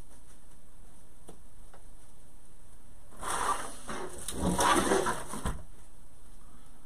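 Rustling and scraping as a grapevine wreath dressed with ribbon bows and artificial sunflowers is handled and slid across a table. It lasts about two seconds past the middle and ends in a short knock.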